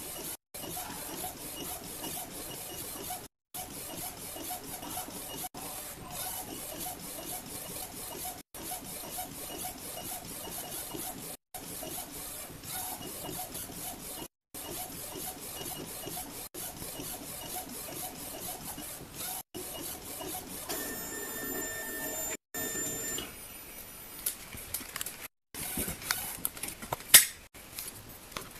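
Small A4 eco-solvent inkjet flatbed printer printing, its print-head carriage sweeping back and forth with a rubbing whir that breaks off briefly about every three seconds. Near the end there is a steady motor whine for a couple of seconds, then a few clicks and one sharp knock.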